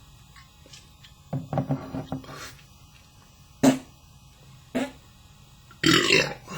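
A man belching several times: a drawn-out, choppy burp a little over a second in, two short ones in the middle, and the loudest, fullest one near the end.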